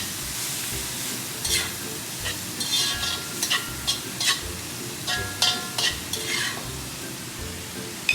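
Cabbage stir-frying in a pan: a steady sizzle with a spatula scraping and clinking against the pan about once a second.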